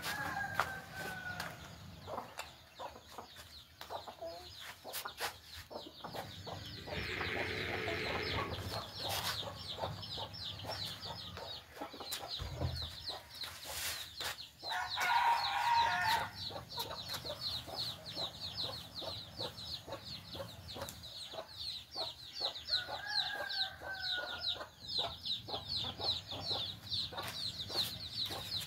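Domestic chickens, village hens and a Bangkok rooster, clucking, with two longer, louder calls about seven and fifteen seconds in. A rapid, high-pitched chirping runs underneath from about eight seconds on.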